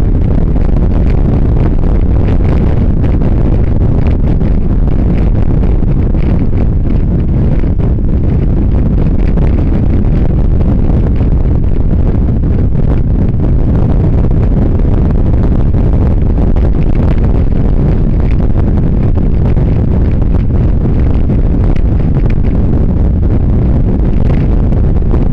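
Wind buffeting the built-in microphone of a camera on a moving motorcycle at road speed: a loud, steady rumble that covers everything else.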